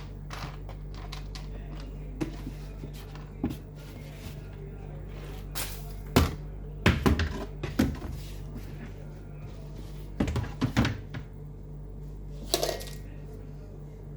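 Household items being handled and set down while a cabinet is cleared out: scattered knocks and clatters, busiest in the middle and again near the end, over a steady low hum.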